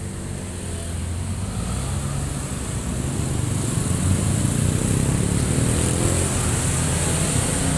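Road traffic: motor scooters and cars driving past, their engines growing steadily louder, with one engine's pitch rising as it speeds up about halfway through.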